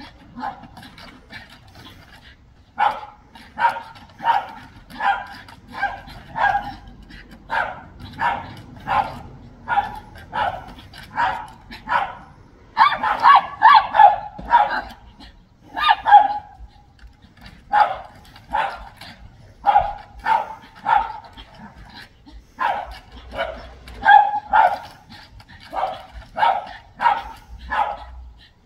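Dog barking repeatedly in sharp, high barks, about two a second, with a few short pauses and a fast, loudest flurry about halfway through: territorial fence barking at a neighbour's dog.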